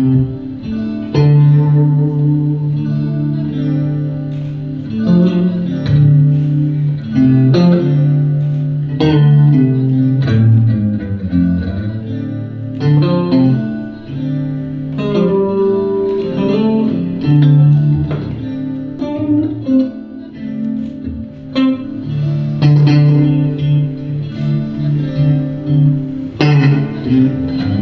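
Electric guitar played live: plucked notes over low held notes that shift in pitch every second or two.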